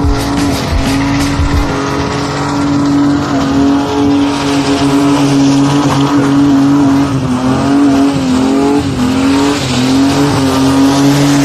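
Car doing a burnout: engine held at high revs with the tyres spinning and squealing. The pitch stays high and wavers, dipping briefly several times in the second half.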